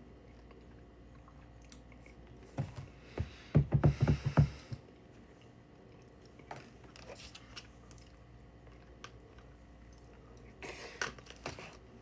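A quick run of short clicks and knocks about three and a half seconds in, then a few scattered faint clicks against a quiet room.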